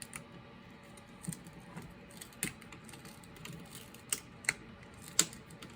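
Irregular sharp clicks and ticks of a prying tool working a laptop's display panel loose from its adhesive, with a few louder clicks near the end.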